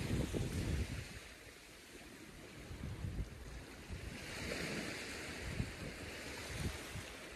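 Small waves washing onto a sandy beach, with wind buffeting the microphone in the first second. The surf hiss swells about four to five seconds in.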